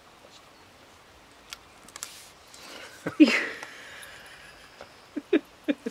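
A German Shepherd and a black-and-tan puppy at play: soft scuffling, one loud short yelp about three seconds in, then a quick run of four short yips near the end.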